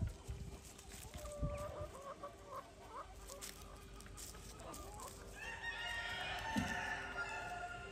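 Ayam Cemani chickens clucking in short, scattered calls. About two-thirds of the way in, a rooster breaks into one long, drawn-out crow.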